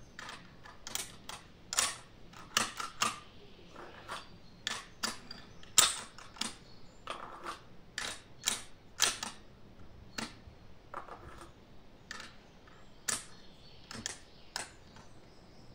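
Irregular sharp clicks and ticks, a few each second, one louder than the rest about six seconds in.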